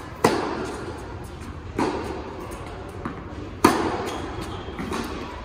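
Tennis ball hit back and forth with rackets in an indoor tennis hall: three sharp racket strokes roughly one and a half to two seconds apart, with fainter knocks between, each echoing in the hall.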